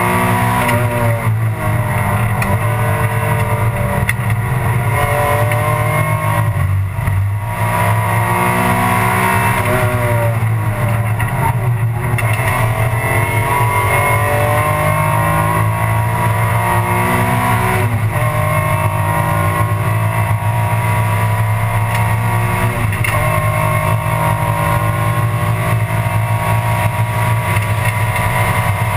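Alfa Romeo 156 GTA race car's V6 engine heard from inside the cockpit at racing speed. The engine note climbs under throttle and drops or breaks several times at gear changes and lifts.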